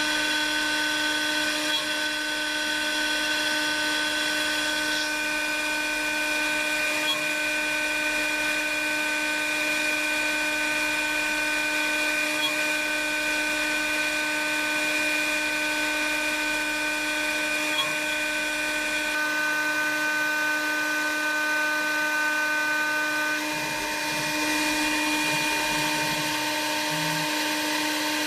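CNC milling machine's spindle running with a steady whine while a 6 mm radius cutter mills a glued-up hardwood block, the cutting noise under the whine. The whine's pitch shifts a few times, about five seconds in and again near twenty seconds.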